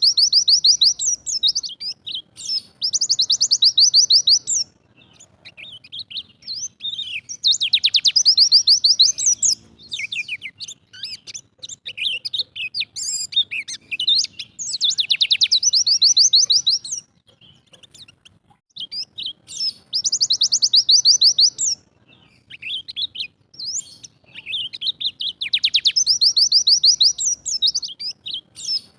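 A pleci (white-eye) singing its 'tembakan' song: loud bursts of about two seconds, each a fast, high trill of many quick notes. The bursts repeat every few seconds, about six times, with shorter, scattered chirps between them.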